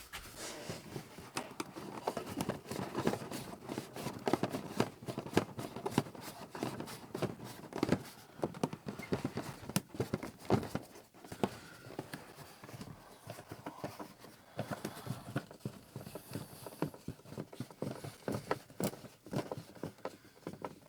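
Irregular clicks, knocks and scrapes of a screw being fitted and worked in by hand at the sleeper cabinet mount, with metal and plastic parts being handled.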